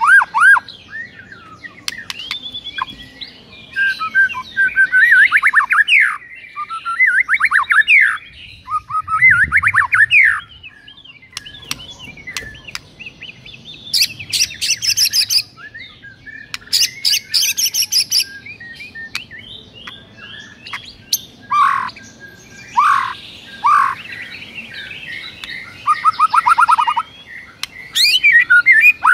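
White-rumped shama singing a loud, varied song of fast repeated whistled notes, trills and sweeping phrases with short pauses between them. There are two harsh, rasping bursts about halfway through.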